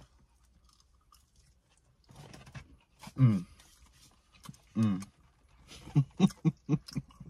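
Wordless vocal noises from a man's voice: two loud falling yelps about three and five seconds in, then a quick run of short voiced bursts near the end.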